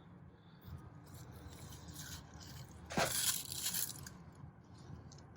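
Rustling and crunching of garden plants and soil being handled by hand, with a louder scraping burst about three seconds in that lasts about a second.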